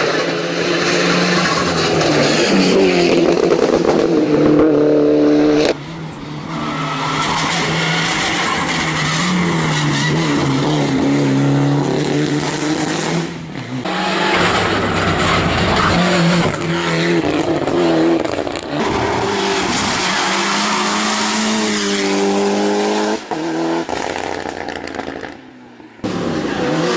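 Mitsubishi Lancer Evolution rally car's turbocharged four-cylinder engine revving hard, its pitch climbing and dropping through gear changes. It comes in several short passes with abrupt cuts between them.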